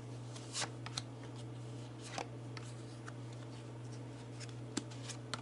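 Tarot cards being handled: a few soft, scattered flicks and taps of card stock over a steady low hum.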